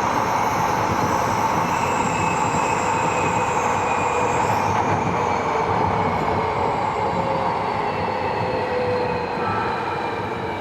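Inside a Tobu 70000 series electric multiple unit running on the line: wheel and rail noise under the whine of the traction motors' VVVF inverter, whose tones slide slowly down in pitch as the train slows.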